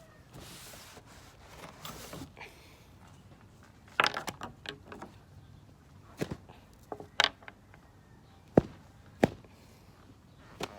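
Handling noises from cleaning a sneaker by hand: a soft brushing hiss at the start, then scattered sharp clicks and knocks as the shoe and cleaning tools are moved and set down.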